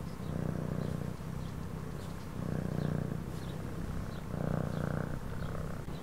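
Domestic cat purring, the purr swelling and fading in a steady rhythm about once a second with each breath in and out.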